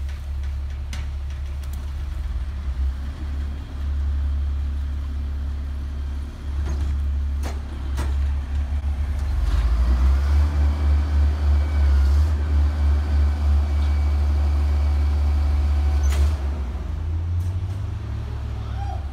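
Diesel engine of a McNeilus rear-loader garbage truck idling, then running louder from about halfway through as the hydraulic packer cycles to crush bagged trash and brush in the hopper, before easing back near the end. A few sharp knocks in the first half.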